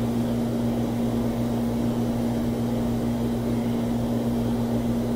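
A steady low electrical or mechanical hum, unchanging in pitch and level, with nothing else standing out.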